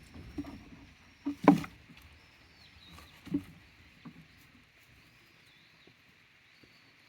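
Goats moving about: a few dull knocks and thumps, the sharpest about a second and a half in and another near the middle, then quieter.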